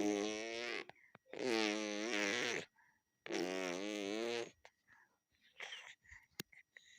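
A baby buzzing its lips to imitate a helicopter: three long, wavering 'brrr' buzzes of about a second each, with short pauses between them, then a few faint small sounds.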